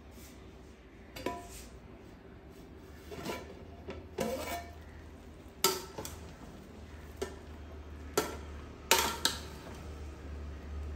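A long metal spoon knocking and scraping inside an aluminium pot as cooked khichdi rice is stirred and fluffed: a series of separate clinks, some with a short metallic ring, roughly one every second or so.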